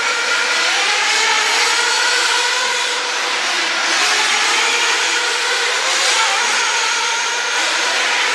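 Several radio-controlled off-road race cars running together, their motors revving up and dropping away in overlapping pitches that rise and fall.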